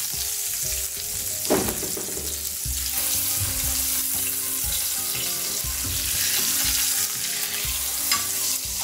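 Meatball loaves sizzling steadily in hot oil in a stainless steel sauté pan, with a metal spatula scraping against the pan a couple of times as the loaves are turned and lifted out.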